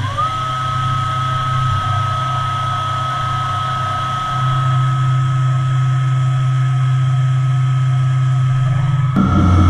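DMG CTX gamma 3000 TC turn-mill machining centre's drives running while its milling head swivels: a whine rises sharply at the start and then holds one steady pitch over a steady low hum. Just before the end the sound shifts and the low hum grows louder.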